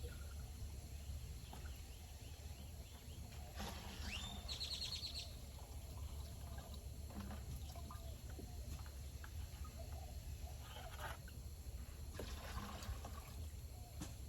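Liquid fertilizer trickling and splashing as it is poured onto garden soil, with small clicks and a steady low hum. A short burst of rapid high chirps about four seconds in.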